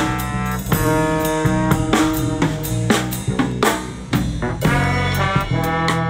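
A live band playing: a drum kit keeping a steady beat with cymbal hits under a saxophone holding long notes.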